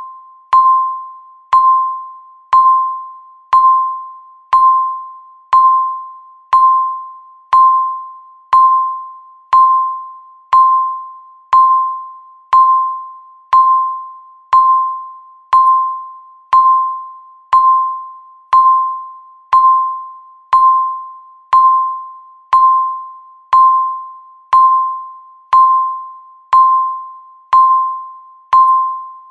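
Countdown timer beeping once every second: a short electronic beep at one steady mid pitch, each starting sharply and fading away before the next.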